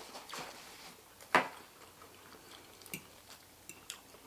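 Eating sounds at a table: scattered sharp clicks and taps from a fork against a plate and from the mouth while chewing. The loudest is a single sharp click a little over a second in, with several smaller ticks near the end.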